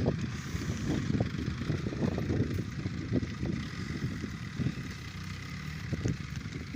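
Excavator's diesel engine running, with a faint steady whine over irregular low rumbling.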